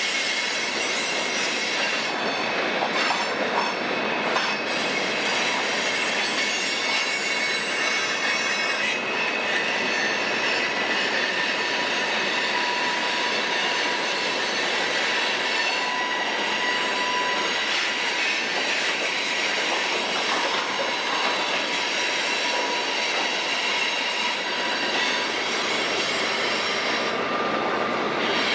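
Cars of a mixed freight train rolling past: a steady rush of steel wheels on rail, with thin, high wheel squeals coming and going.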